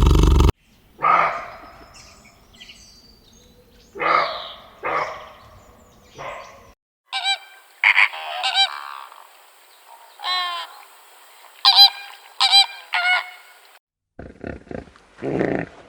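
Domestic fowl calling: a run of short, repeated calls in several separate clips cut one after another, with a louder animal sound breaking off right at the start.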